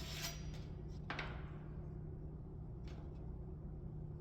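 Faint handling noises over a steady low hum: a light rubbing that dies away early, a small knock about a second in, and a faint tick near the three-second mark.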